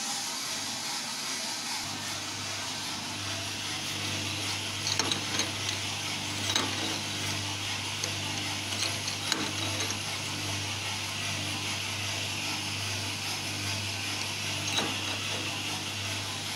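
Drum coffee roaster running mid-roast: a steady hum from the drum's gear motor under a broad steady hiss, with a few sharp metallic clicks and rattles, mostly between about 4 and 10 seconds in and once more near the end.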